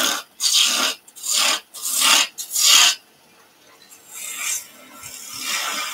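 A turning gouge cutting wood spinning on a lathe: about five quick, loud cutting passes in the first three seconds, then a lighter, continuous cut that grows louder again near the end.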